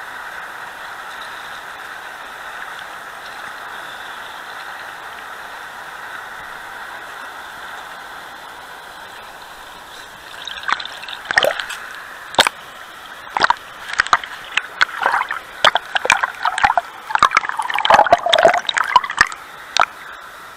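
River rapids rushing in a steady hiss, heard from right at the water's surface. About ten seconds in, close water starts slapping and splashing in quick, irregular bursts that go on for most of the rest.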